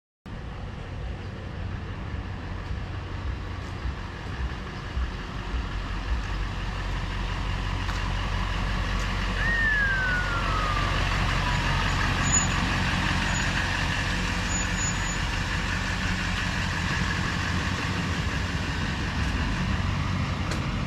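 2007 LBZ Duramax 6.6 L V8 turbodiesel idling with a steady rumble, growing somewhat louder over the first ten seconds. About ten seconds in, a single whistle falls in pitch over a couple of seconds.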